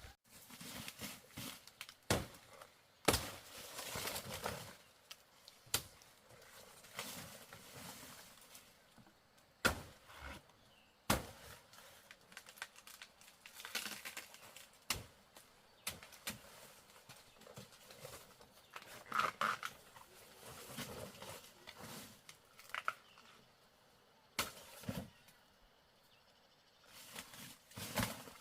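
Rustling and handling noises in bursts, broken by a few sharp knocks.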